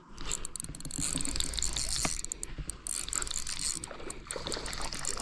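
Spinning fishing reel being cranked, a rapid mechanical clicking and whirring that starts suddenly and runs on steadily.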